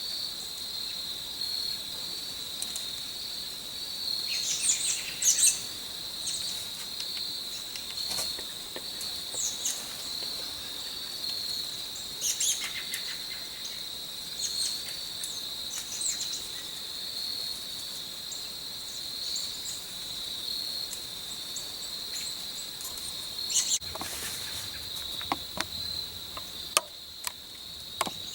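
Steady, pulsing trill of crickets in the woods, with short bird chirps breaking in now and then. Several sharp clicks near the end.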